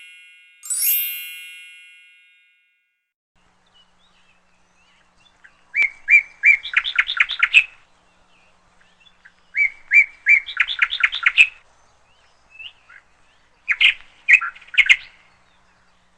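Bird chirping in three short bursts of rapid, high notes, each lasting under two seconds, spaced about four seconds apart. A bell-like ding fades out at the start.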